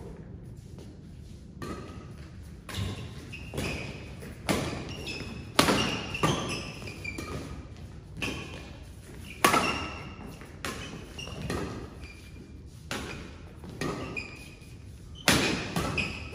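Badminton rackets hitting a shuttlecock back and forth in a doubles rally, a quick string of sharp hits about every half second to second, echoing in a large hall.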